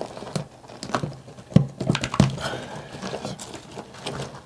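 Broken ceramic tile and thinset mortar being worked loose from a shower wall: several sharp knocks, the loudest about a second and a half and just over two seconds in, with scraping and crumbling of debris between.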